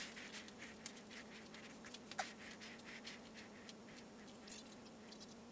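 Faint scattered small taps and clicks over a steady low hum, with a sharper tap at the start and another about two seconds in.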